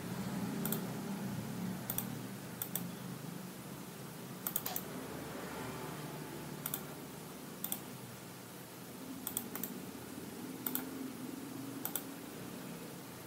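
Scattered clicks of a computer mouse and keyboard, single or in quick pairs and threes, roughly once a second, over a steady low hum.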